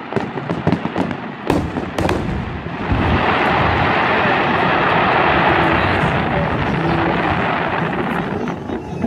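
Aerial fireworks: a run of sharp bangs and cracks as shells burst, then from about three seconds in a dense, steady crackling rush lasting some five seconds, from a glittering crackling shell, fading near the end.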